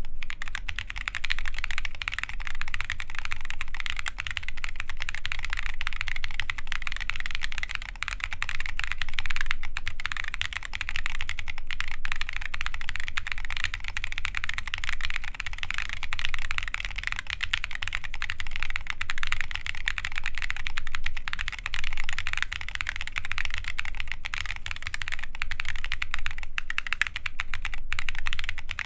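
Continuous fast typing on a mechanical keyboard with lubed Holy Boba tactile switches, KAT Alpha keycaps and a full carbon fiber plate: a steady stream of keystroke clacks.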